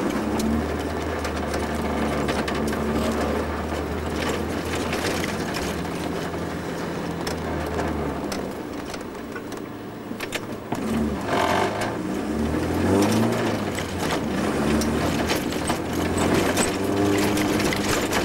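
Vauxhall Nova 1.3SR rally car's four-cylinder engine heard from inside the cabin, running at low speed with a steady note. It eases off about ten seconds in, then picks up revs again. A constant clatter of small clicks and rattles runs underneath.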